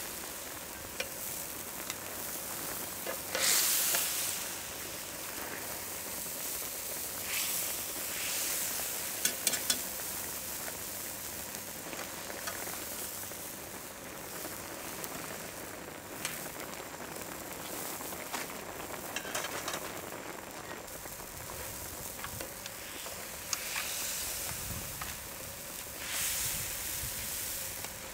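Spicy chicken ramyeon broth boiling hard in a wide cast-iron cauldron lid, a steady bubbling sizzle with a few louder hissing swells as it is stirred with metal tongs. Now and then the tongs click against the pan.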